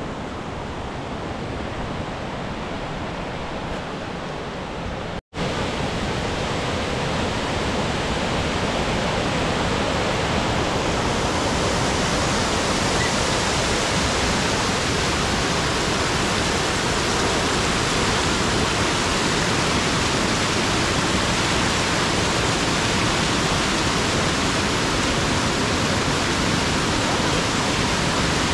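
Water pouring over a concrete river weir: a steady rushing hiss of falling white water. It is quieter at first, drops out for an instant about five seconds in, then comes back louder and fuller, growing over the next several seconds before holding steady.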